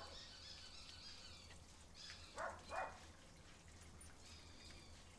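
Quiet outdoor background with faint birds chirping. About two and a half seconds in come two brief wet rubbing sounds from hands scrubbing a soapy, wet dog's coat.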